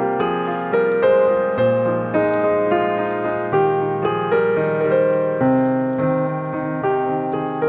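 Background piano music: a slow, gentle melody of single struck notes, each one starting sharply and then fading.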